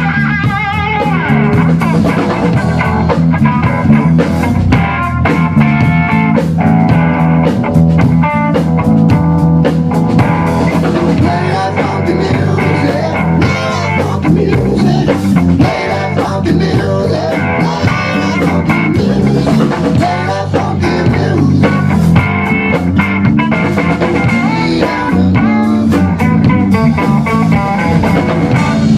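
Live rock band playing: electric guitar over electric bass and a drum kit, with dense drum hits and steady bass notes.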